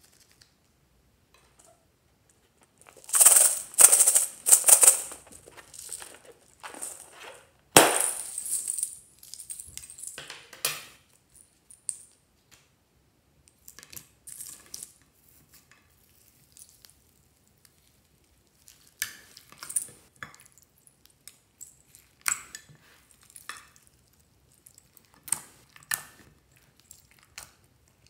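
Slime add-ins being handled in a glass baking dish: scattered clicks, clinks and rustles as small pieces are dropped and moved around. A dense run of rustling and clicking comes about three to five seconds in, and a sharp knock near eight seconds.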